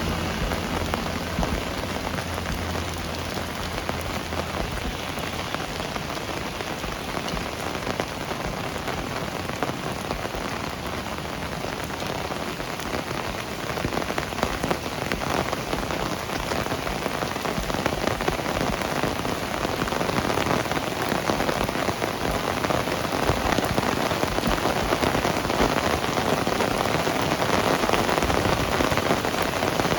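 Heavy rain falling and splashing on surfaces, a continuous dense hiss that grows somewhat louder over the second half. A passing vehicle's low hum fades out in the first few seconds.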